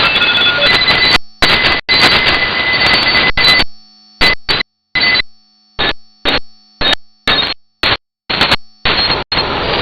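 Shortwave radio static through a WebSDR receiver: loud hiss with a few faint steady whistles. Partway through it starts cutting in and out in short chunks, several a second, then runs steady again near the end.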